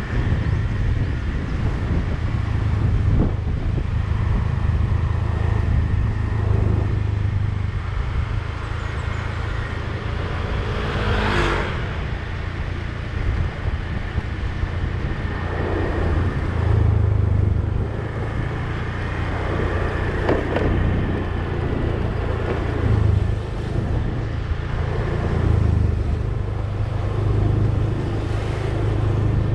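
Steady road noise and low engine rumble from a vehicle driving along, with a brief louder rush about eleven seconds in and a few smaller swells later.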